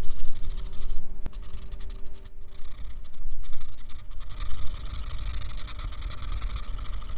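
Paper blending stump rubbing graphite over drawing paper: a scratchy hiss in short strokes with brief breaks, then steady rubbing through the second half.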